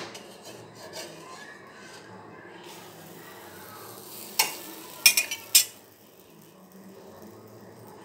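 Metal spatula scraping on a flat black griddle (tawa) under pancakes, with four or five sharp metal clinks against the pan between about four and six seconds in.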